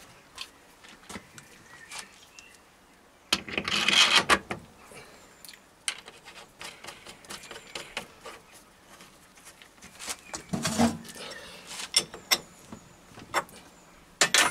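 Metal parts being handled on a lathe: scattered clinks and knocks, with two short rattling bursts, as a quick-change toolpost is set on its stud on the cross slide and clamped.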